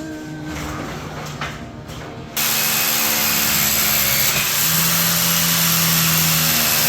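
The end of a background song, then about two and a half seconds in a loud power tool cuts in abruptly and runs steadily.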